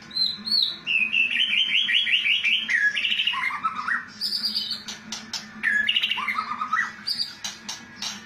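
White-rumped shama (murai batu) singing in rattling 'kretekan' phrases: high whistles, fast runs of repeated notes that step down in pitch, and sharp clicks in between.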